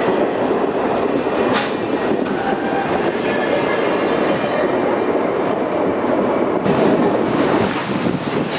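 Passenger coaches and a caboose rolling past close by on jointed track, steel wheels rumbling with a sharp knock about one and a half seconds in and a faint, steady wheel squeal. Near the end the sound changes to wind rumbling on the microphone.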